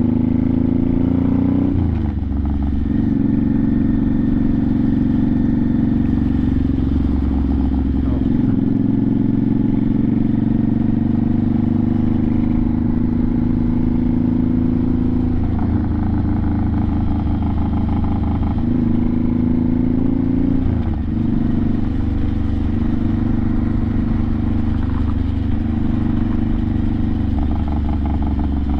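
1986 Honda Shadow 700's V-twin engine running under way. Its pitch rises, drops back about two seconds in, then holds fairly steady, with a few small dips and rises.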